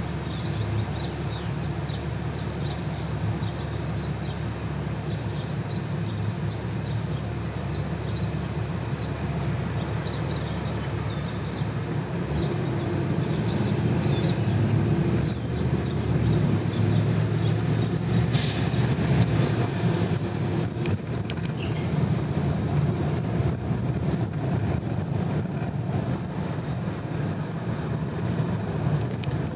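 A vehicle driving: steady road and tyre noise with a low rumble that grows somewhat louder in the second half, and a sharp click about 18 seconds in.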